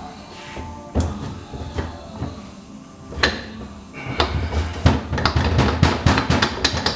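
Allis-Chalmers loader hydraulic cylinder's rod and piston being worked out of the barrel by hand. A couple of separate metal knocks come first, then from about four seconds in a dense run of rapid clicking and scraping as the piston drags through the bore. It comes apart hard, which the owner takes as a sign that the seals are still intact.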